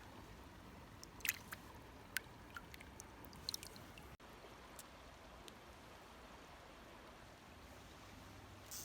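Faint steady running of a small creek, with a few short sharp clicks and ticks in the first half.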